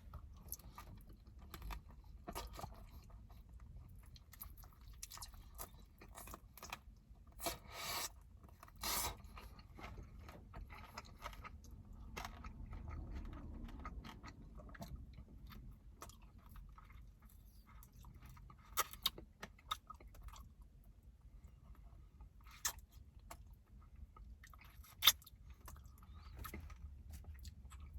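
Close-miked eating of sticky glazed fried chicken wings: chewing and biting with crunching, interspersed with short sharp clicks and smacks, a few of them louder.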